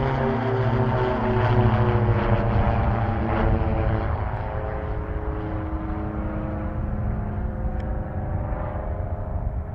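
A landing airliner passing close by, its engine tones sliding down in pitch as it goes past, loudest in the first few seconds, then a fading rumble.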